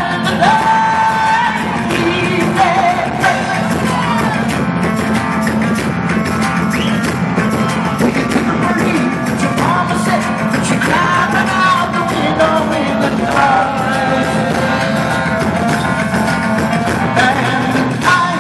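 A live band playing loud, with a male lead singer singing over drums and percussion.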